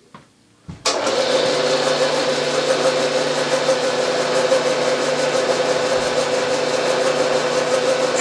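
Milling machine switched on a little under a second in, its spindle then running steadily with a T-slot cutter mounted, a loud even machine hum with a steady tone.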